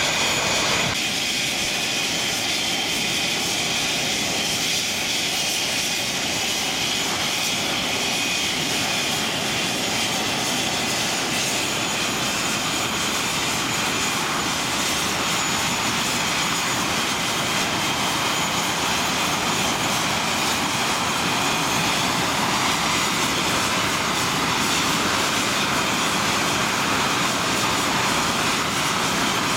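English Electric Lightning jet engines running at idle: steady jet noise with a high whine.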